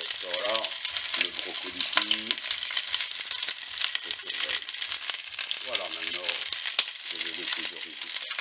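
Chicken thighs frying in hot oil in a stainless steel pot: a steady sizzle with crackles as the skin browns.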